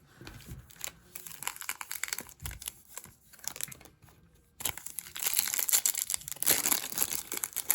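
A foil trading-card pack wrapper crinkling and tearing as it is opened, loudest from a little past halfway on. Before that there are only soft scattered clicks of cards being handled.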